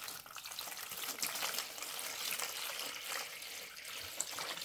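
Distilled water being poured into the compressor's cooling-water container: a continuous splashing, trickling pour.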